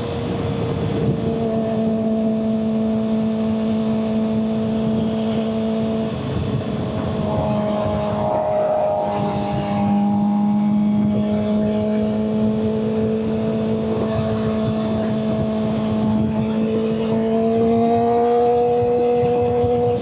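Suzuki GSX-R600 inline-four engine running at steady revs while riding, over wind noise. The engine note breaks about six seconds in, then comes back and settles at a steady pitch from about ten seconds, rising slightly near the end.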